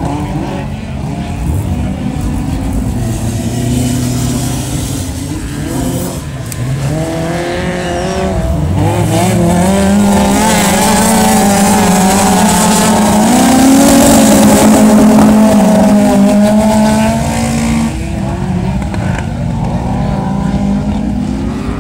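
Autograss race cars racing on a dirt track, several engines revving hard and rising and falling in pitch as they pass. The sound swells to its loudest a little past halfway, then drops off suddenly.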